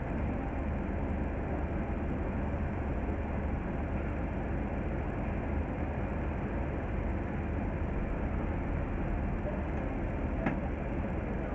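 Double-decker bus engine idling at a stop, heard from inside the upper deck: a steady low rumble, with one short click about ten and a half seconds in.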